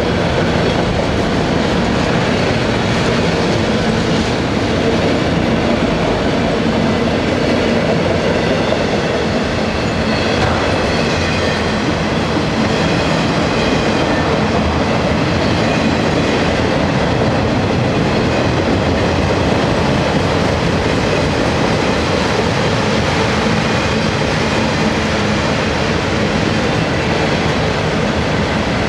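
Freight train of enclosed autorack cars rolling past: a steady, loud rumble and clatter of steel wheels on the rails.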